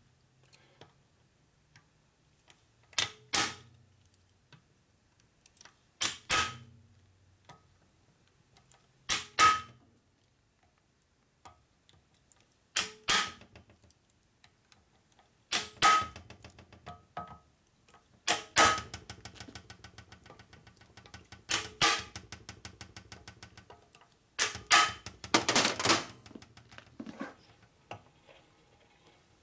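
Hammer blows on a hand impact driver, tightening screws into an aluminium engine case. The sharp metallic strikes come mostly in pairs every few seconds, with runs of fast light clicks between the later ones.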